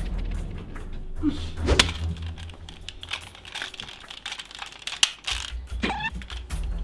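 Plastic toy dart blaster being handled and primed: a run of small clicks, taps and rattles, with one louder click about two seconds in.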